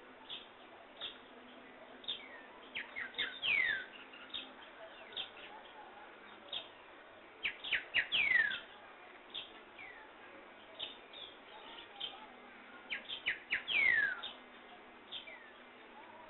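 Wild birds singing: a clear whistled note sliding downward, repeated about every five seconds, among many short chirps.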